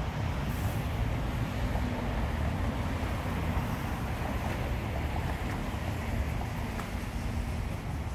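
Steady outdoor rumble of wind buffeting the microphone, mixed with the hiss of road traffic.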